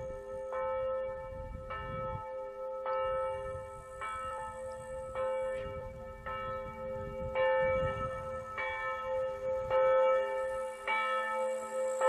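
Church bells ringing, a new stroke about every second, with one deep note humming on between the strokes.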